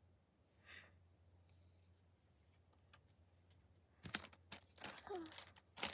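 Plastic packaging crinkling in a run of quick irregular bursts starting about four seconds in, as merchandise is handled. A short soft hiss comes near the start.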